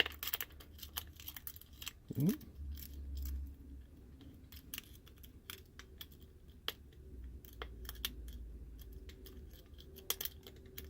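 Lock-picking tools working in the keyway of a Wiser knob lock cylinder: scattered small metallic clicks and light scrapes as the pins are raked and set, with one brief rising scrape about two seconds in.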